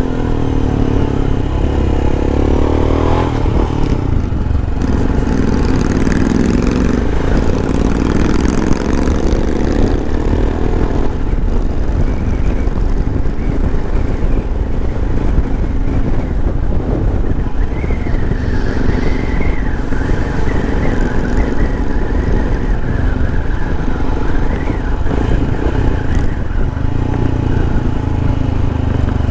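Royal Enfield Himalayan's 411 cc air-cooled single-cylinder engine running while the motorcycle is ridden. Its pitch rises and falls several times in the first ten seconds, then settles into a steadier run.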